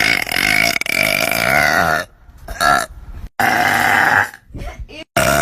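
A girl burping: long, drawn-out burps held at a steady pitch. The first lasts about two seconds, a short one follows, then another of about a second, and a new one starts near the end.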